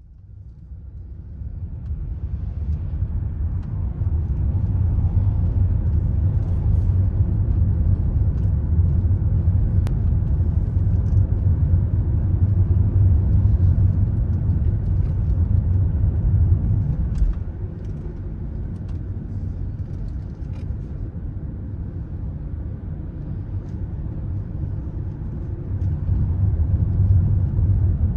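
A car driving: a steady low rumble of engine and road noise that fades in over the first few seconds. It drops a little quieter past the middle and picks up again near the end.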